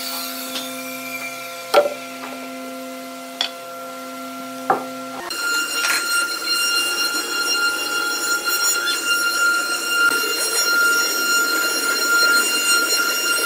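A steady low hum with three sharp clicks. About five seconds in, the sound changes abruptly to the high, steady whine of a multi-spindle CNC router's spindles running.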